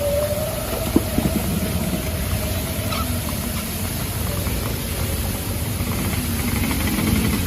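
Motor vehicle engine running at low speed under a steady hiss, with two or three sharp knocks about a second in.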